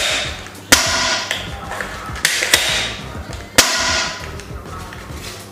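Hard plastic parts of a toy AWM sniper rifle being handled and knocked together: three sharp clacks, each followed by a short plastic rattle and rustle.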